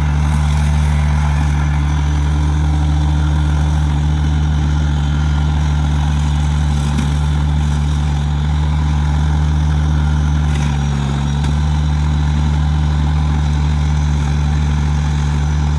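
Kubota BX2350 compact tractor's three-cylinder diesel engine running steadily, with a slight change in its note about two-thirds of the way through.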